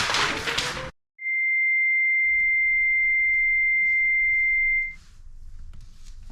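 Music cuts off abruptly about a second in. After a moment of dead silence, a steady high-pitched electronic beep holds at one pitch for nearly four seconds and then stops.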